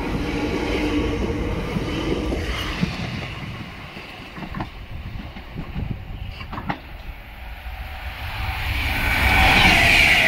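London Overground electric train pulling away, running with a steady hum of two low tones that fades after about three seconds. A few sharp clicks follow in the quieter middle, then an Avanti West Coast express electric train approaching at speed, its noise swelling loud near the end as it passes.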